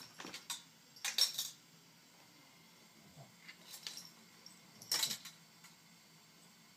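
A cat collar clinking and jingling against a stainless steel water bowl as a kitten paws at it: four short clusters of metallic rattling, the loudest about a second in and about five seconds in.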